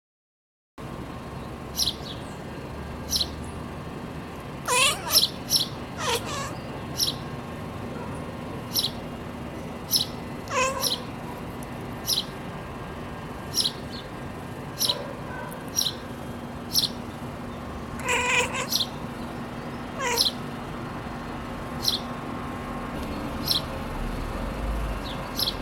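Siamese cat chirping: about five short calls that fall in pitch, with a few grouped early on, two close together later, and a single call between. Throughout, short high chirps of a bird recur about every second or so.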